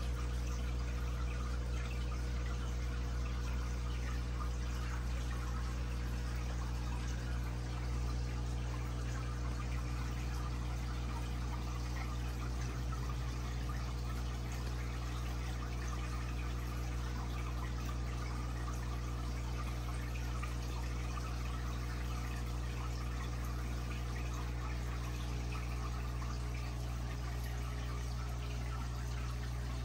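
Aquarium pump running: a steady low motor hum under a constant trickle and splash of water.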